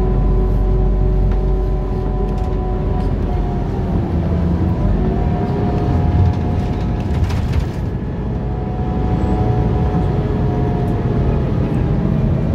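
Scania articulated city bus under way, heard from inside: a steady drivetrain drone and low road rumble, with a whine whose pitch shifts around four to five seconds in as the bus changes speed. A few light rattles come around seven seconds in.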